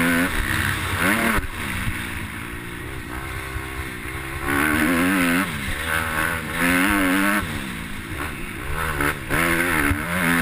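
Kawasaki motocross bike engine heard from the rider's helmet, revving up and easing off as it is ridden round the track. The engine note climbs and falls again and again, with four louder bursts of throttle separated by quieter stretches off the gas.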